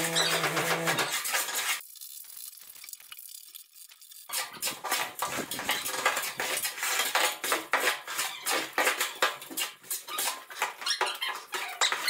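An engine runs steadily until about a second in. After a short lull, steel shovels scrape and clink against a tipping trailer's metal bed and through crushed marble aggregate in a quick, uneven run of strokes, with gravel sliding off the pile.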